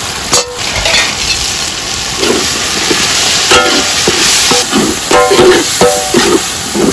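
Tomato-onion masala sizzling in hot oil in a large aluminium pot while a perforated steel ladle stirs it, scraping against the pot, with several short ringing scrapes in the second half.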